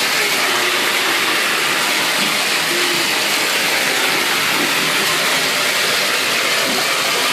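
Steady rush of water running into a bathtub.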